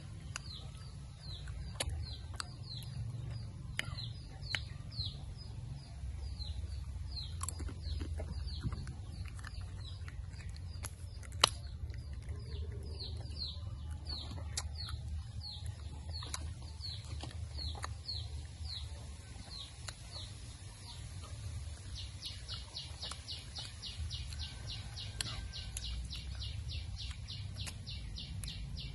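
A bird calling over and over in short downward chirps, two or three a second, changing to a faster run of short pulses for the last several seconds. Scattered small clicks and smacks of chewing sticky dried banana, one sharp click about eleven seconds in, over a steady low rumble.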